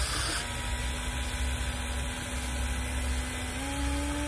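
Electric motors of a Huina 1593 RC excavator whining steadily as the boom and bucket lift, the pitch stepping up a little near the end, over a constant background rush.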